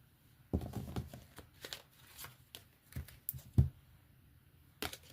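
Tarot cards being handled and shuffled: irregular snaps, taps and rustles of card stock.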